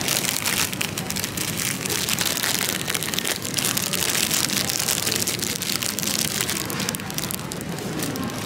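Thin plastic wrapper crinkling as a packaged bread roll is handled and unwrapped: a dense run of fine crackles.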